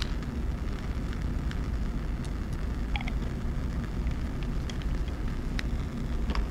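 Steady low rumble of room noise, with a few faint clicks and taps as a plastic serological pipette and a 50 ml conical tube are handled and the tube is capped, a small cluster of them about three seconds in.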